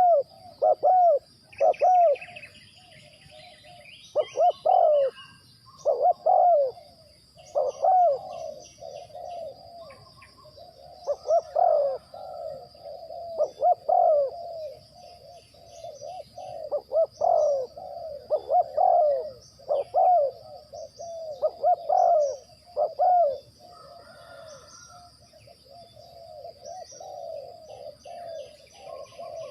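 Spotted doves cooing over and over in phrases of short arched coos, one call overlapping another, with a thin steady high-pitched tone behind and a few brief higher chirps about two seconds in.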